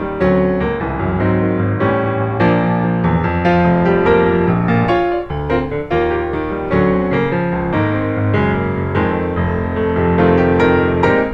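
Piano music, a run of struck notes and chords.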